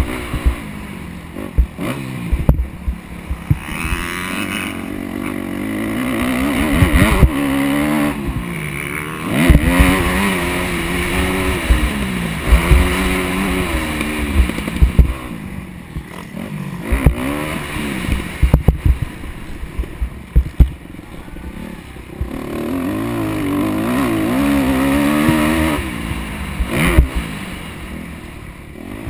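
Dirt bike engine revving up and dropping again and again as the bike is ridden around a motocross track, its pitch climbing and falling with each throttle run. It is heard from a helmet-mounted camera, with low thumps and rushing noise mixed in.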